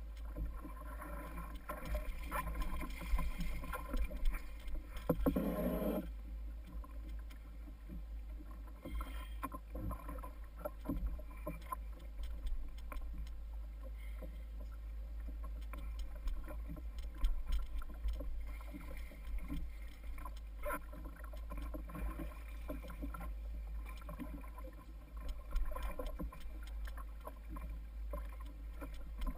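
Water sloshing and lapping against a fishing kayak's hull under a steady low rumble, with scattered knocks and clicks throughout and a louder rush of noise about five seconds in.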